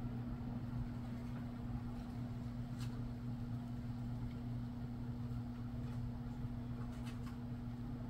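A steady low hum at an even pitch, with a couple of faint clicks about three and seven seconds in.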